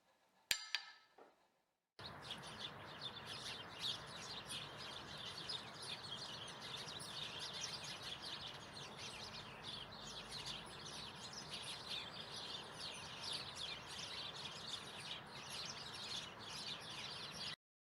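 A single short ringing clink, then from about two seconds in a dense chorus of many small birds chirping over a steady hiss, which cuts off suddenly near the end.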